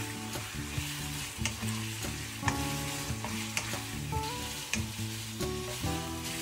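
Pork belly cubes sizzling as they sear in hot oil and butter in a wok, while a wooden spatula stirs them, knocking and scraping against the pan every second or so.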